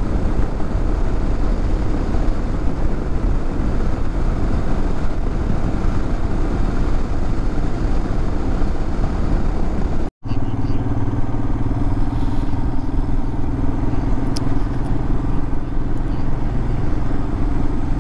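Motorcycle riding at road speed: the engine runs under a steady rush of wind and road noise. The sound breaks off for an instant about ten seconds in, and after that a steady engine hum stands out more clearly.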